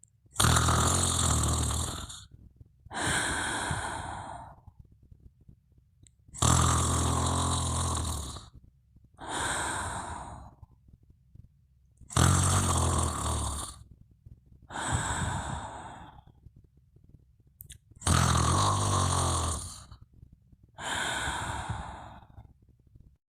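A sleeper snoring: four slow, regular breaths about six seconds apart, each a loud snore with a low rattle followed by a softer, shorter breath.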